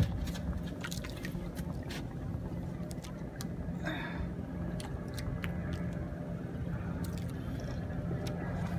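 Faint steady hum of a boat engine running at idle, with water sounds and scattered small clicks and knocks from the rod and reel as the angler keeps pressure on a hooked fish. A brief squeak sounds about four seconds in.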